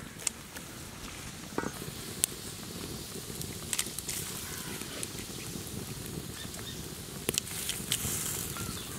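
Handfuls of small wet raw fish dropped by hand into boiling fish curry: soft wet patters and a few sharp clicks over a steady hiss from the pot.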